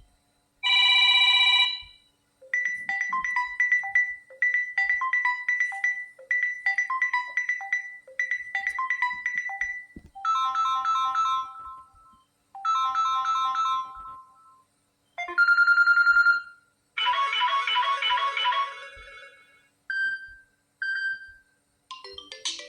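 Samsung Galaxy A03 stock ringtones played one after another: several short electronic melodies and chimes, some repeating a short phrase a few times, each separated by a brief pause, ending in two short beeps.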